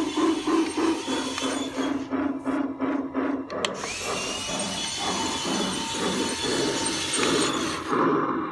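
Eztec G-gauge toy steam locomotive running, its sound unit playing a rhythmic steam chuff, about three a second, over a steady hum. After a click about three and a half seconds in, the chuffing slows.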